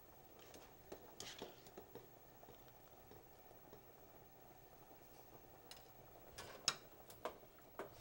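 Faint clicks and taps of a cooking utensil against a skillet and pots, a few about a second in and a cluster near the end; otherwise near silence.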